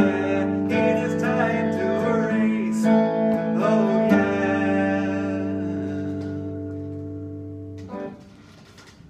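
Electric guitar strumming chords, with wordless singing over the first few seconds. About four seconds in a last chord is left to ring and slowly fade, then a short sharp strum cuts it off near the end.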